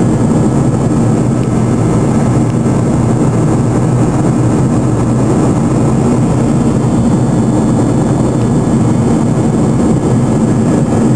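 Cabin noise of a Boeing 737-200's Pratt & Whitney JT8D turbofan engines during the climb after takeoff: a loud, steady low roar with a steady hum underneath.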